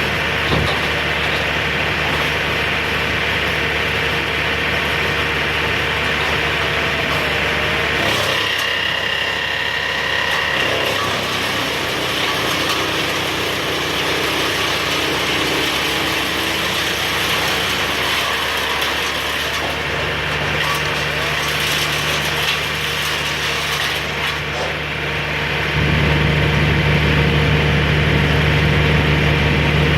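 Engine of a piece of heavy equipment running steadily, with some mechanical rattling. It speeds up and gets louder near the end.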